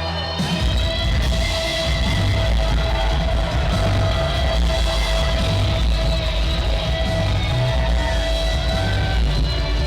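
Loud rock-style entrance music with a heavy bass and a steady beat.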